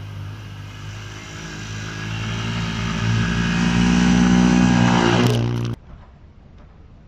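A vehicle engine running steadily and growing louder over a few seconds, then cutting off suddenly about six seconds in.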